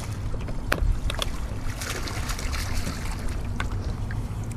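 Steady low rumble and water noise around a fishing boat on the river, with a few short, sharp clicks.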